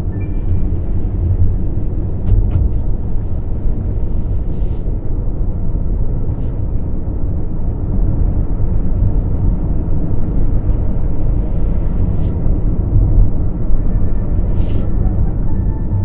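Steady low rumble of a car's engine and tyres on the road, heard from inside the cabin while driving, with a few faint clicks.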